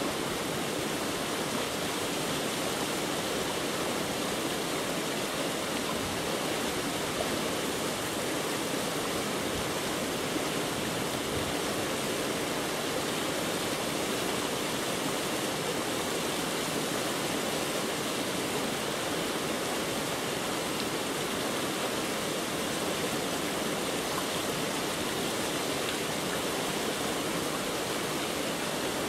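A steady, unchanging rushing noise.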